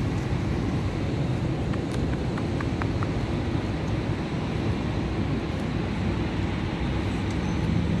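Steady low rumbling background noise, with a few faint, short high ticks about two to three seconds in.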